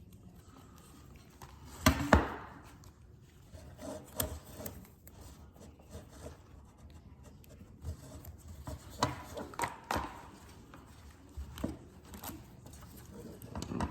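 Hands handling shifter parts and a plastic zip tie: rubbing and scattered light clicks, with two sharp knocks about two seconds in.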